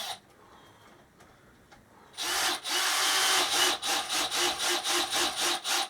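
Rasping of a tool worked by hand on wood, starting about two seconds in: one long stroke, then quick back-and-forth strokes about four a second.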